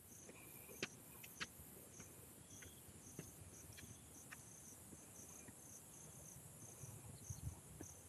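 Faint insect chorus: a steady high-pitched shrill with a pulsing chirp about twice a second. A few soft sharp clicks are mixed in.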